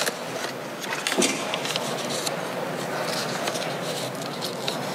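Ambience of a large meeting chamber: faint background murmur with scattered paper rustling, small clicks and shuffling.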